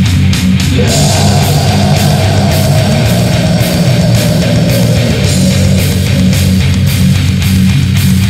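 Old-school death metal recording: distorted electric guitars, bass and drums playing at full loudness. A long held note slides in about a second in and fades out around five seconds in.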